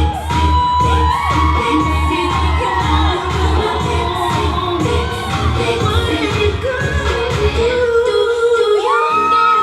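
Pop dance track with singing over a steady pulsing bass beat; the bass drops out briefly near the end.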